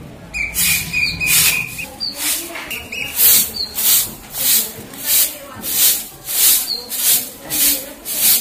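A short-handled broom of stiff dry grass stalks sweeping a dusty floor, a scratchy swish with each stroke, about one and a half strokes a second.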